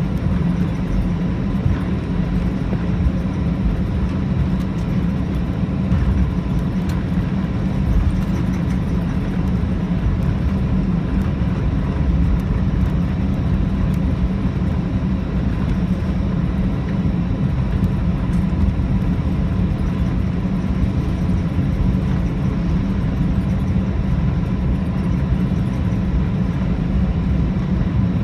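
Cabin noise of an Airbus A319 taxiing: a steady low rumble from the idling engines and rolling airframe, with a faint steady whine.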